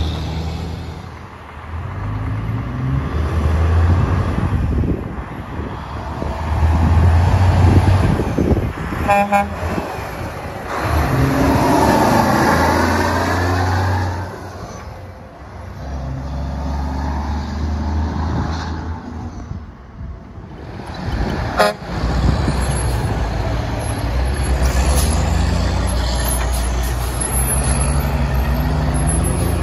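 Straight-piped semi-truck diesel engines pulling trailers away, loud and deep, the exhaust note climbing and dropping back with each gear shift as several trucks in turn accelerate past.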